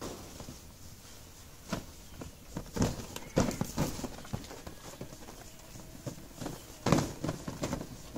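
Irregular knocks, thuds and scrabbling of young vervet monkeys jumping and climbing about their enclosure, with a few louder knocks about three and a half and seven seconds in.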